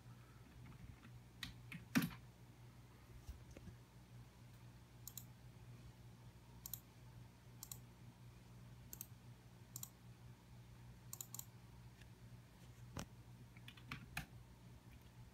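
Faint, irregular keystrokes on a computer keyboard, about a dozen scattered clicks, over a steady low hum.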